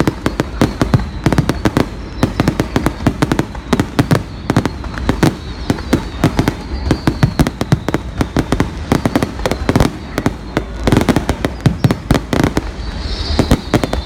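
A fireworks display with aerial shells bursting overhead in a rapid, continuous barrage of bangs, several a second without a pause.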